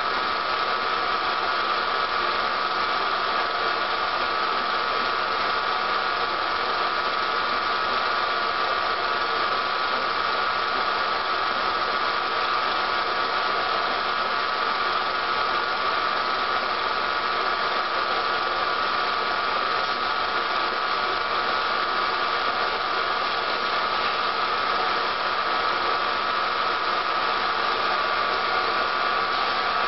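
Steady hiss and hum, unchanging throughout, with no soundtrack sound of its own: the background noise of a silent film transfer.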